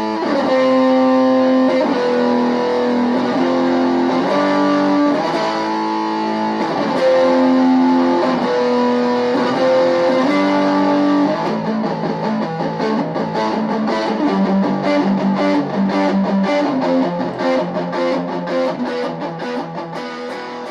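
Electric guitar played through a Fender-branded custom practice amplifier with distortion on and its tone switch in the rhythm position. Held chords change about once a second, then turn to quicker picked, chugging rhythm about halfway through.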